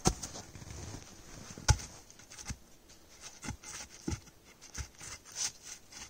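Rustling and crunching of snow and dry leaf litter as a person kneels and shifts about, with scattered soft knocks. The sharpest knock comes a little under two seconds in.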